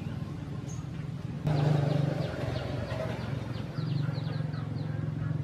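Outdoor background: a steady low hum, louder from about a second and a half in. Over it, a bird chirps a quick run of short falling notes near the middle.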